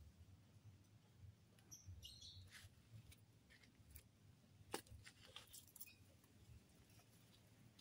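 Near silence: faint outdoor ambience with a few soft clicks and some faint high chirps.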